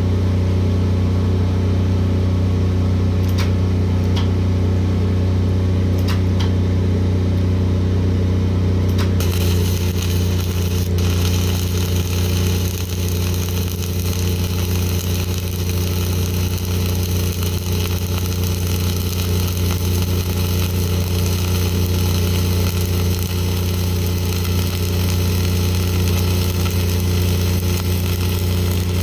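Self-shielded flux-core arc welding with Lincoln NR-305 5/64-inch wire: about nine seconds in the arc strikes and a steady hiss runs on over the steady hum of a Lincoln 305D engine-driven welder's diesel engine. A few sharp clicks come before the arc starts.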